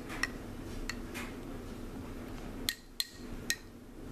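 Metal spoon stirring protein powder into water in a tall drinking glass, clinking against the glass about six times at uneven intervals, each clink with a short ring.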